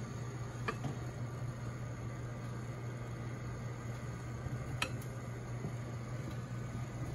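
Steady low hum of a motor or fan in the kitchen, with two faint light clicks, one about a second in and one near five seconds in.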